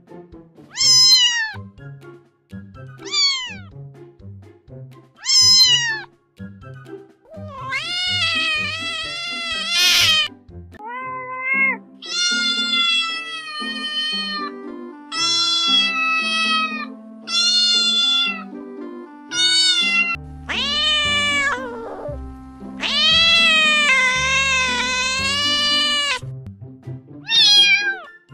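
A domestic cat meowing over and over: three short meows that fall in pitch, then a run of long, drawn-out, wavering meows, the longest lasting about three seconds near the end. Background music with low notes plays underneath.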